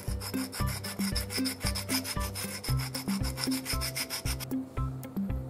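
Oil stone rubbed on the face of a steel bearing nut to take off burrs: a fast run of scraping strokes that stops about four and a half seconds in. Background music with a bass line plays underneath.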